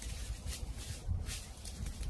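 Footsteps crunching through dry fallen autumn leaves, a crunch about every half second, over a low rumble of wind on the microphone.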